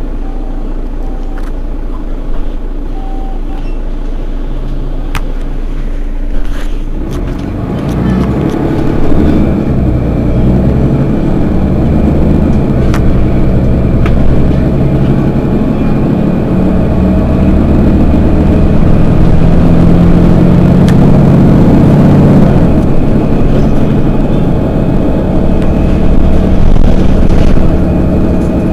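Mercedes-Benz Citaro city bus diesel engine running steadily, then from about seven seconds in running harder and louder, its pitch climbing as the bus pulls away under load.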